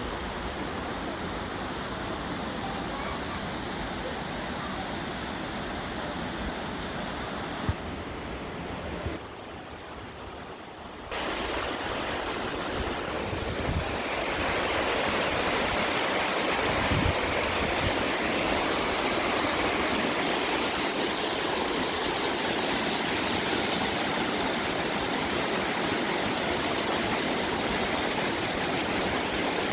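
Waterfall: a steady rush of falling water. It turns suddenly quieter about nine seconds in, jumps back up near eleven seconds, and stays louder from about fourteen seconds on.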